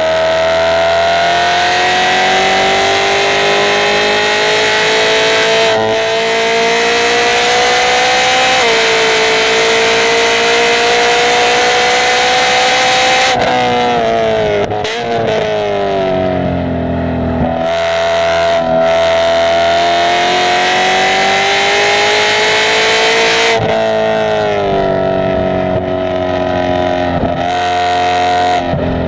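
Car engine under hard acceleration through a track lap, its pitch climbing steadily in each gear. There are upshift drops about nine and twenty-four seconds in, and a stretch of braking and downshifting around fourteen seconds in.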